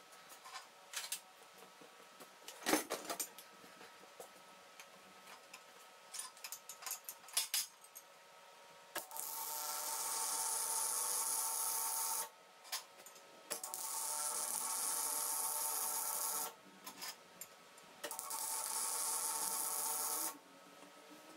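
MIG welding arc sizzling steadily in three runs of about three seconds each, welding steel steam-pipe bends. Before that come scattered clicks and knocks as parts and tools are handled.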